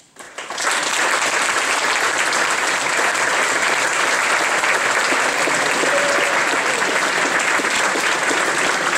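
Audience applauding, a large crowd of hands clapping. The applause comes in sharply within the first half second and holds steady.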